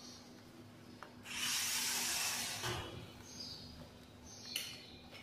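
RC rock crawler's small electric motor and gears whirring for about a second and a half as it drives across a hard floor, with a shorter, fainter whir near the end.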